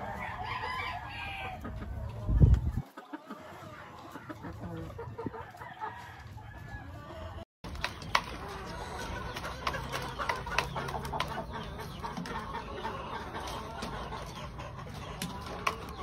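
Gamefowl roosters and hens clucking and crowing. A loud low thump comes about two and a half seconds in. In the second half, sharp quick clicks come as a rooster pecks feed from a plastic feeder tub.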